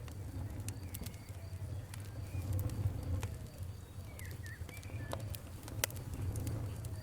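Wood fire crackling with irregular sharp pops over a steady low rumble, and birds chirping a few times in the background.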